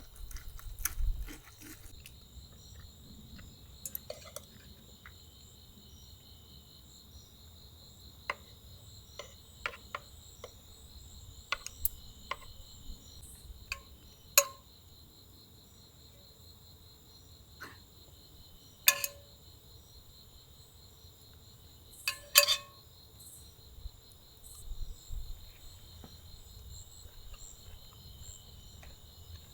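A steady, high, finely pulsing trill of insects, with scattered sharp clicks and clinks, the loudest three about halfway through and near two-thirds in.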